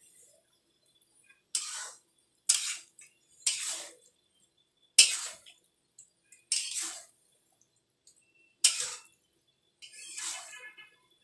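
Spatula strokes stirring chicken in a kadhai: seven separate short scraping strokes, a second or two apart.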